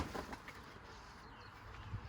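The tail of a heavy impact dies away, followed by a few light clicks and knocks and a small knock near the end, while birds chirp faintly.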